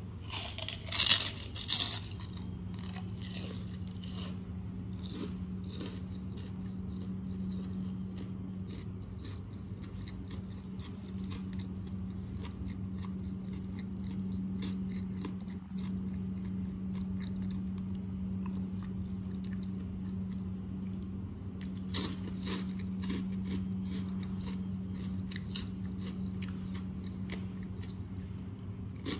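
A crisp cracker being bitten and chewed, with loud crunches about a second in and softer chewing crunches later on. A steady low hum runs underneath.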